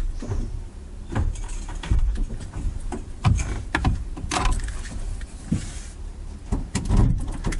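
Irregular knocks, clunks and rustles of a car's driver door being opened and someone moving at it, over a low rumble.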